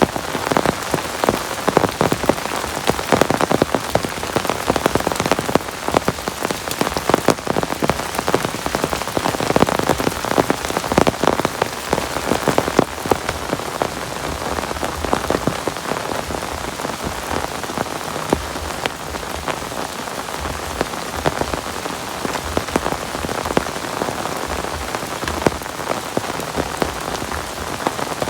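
Heavy rain falling steadily, a dense patter of countless drops striking a close surface.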